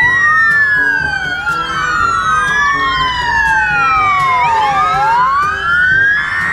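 Sirens of several Czech fire brigade vehicles wailing together, each rising and falling in pitch out of step with the others, so the wails overlap and cross.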